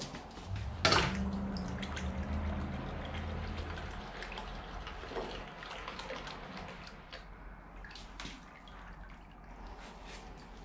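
Red-hot 1060 steel axe head quenched in a bucket of oil. After a sharp clank at the start it goes into the oil about a second in and sizzles and crackles, with a low rumble for the first few seconds; the sizzle slowly fades as the steel is hardened.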